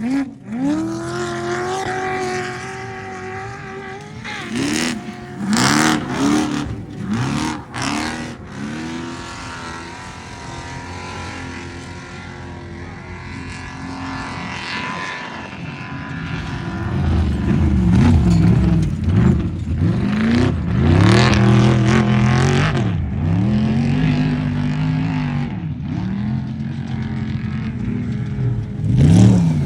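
Off-road race truck engine revving up and down over and over as it races, getting louder about halfway through.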